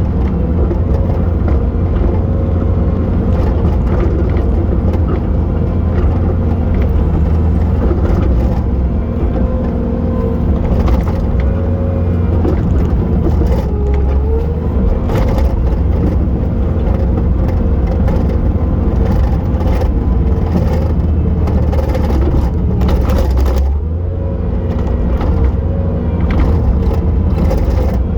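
Bobcat T870 skid steer's diesel engine running steadily at work, with a continuous whine whose pitch dips briefly twice, about halfway and near the end. Scattered knocks and scrapes sound over it.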